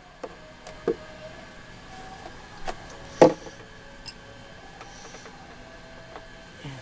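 A handful of sharp clicks and knocks from handling and taking apart an old speaker unit, the loudest near the middle.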